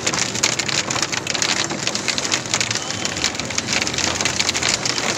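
Hail and heavy rain pelting the roof and windshield of a pickup truck, heard from inside the cab as a dense, steady patter of sharp ticks.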